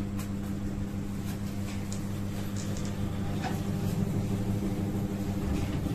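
Steady electric hum from a small motor running, with a few faint light rustles over it.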